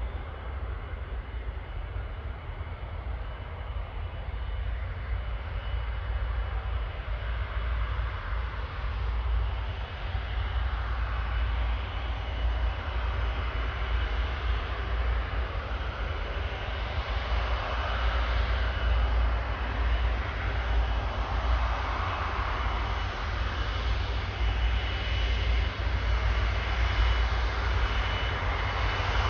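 Airbus A330's Rolls-Royce Trent 700 turbofan engines running: a steady jet rumble with a thin high whine, growing gradually louder.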